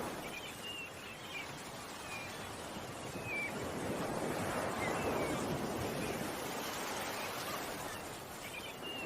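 Ocean waves washing on a shore, swelling to a peak around the middle, with scattered short bird chirps over the top.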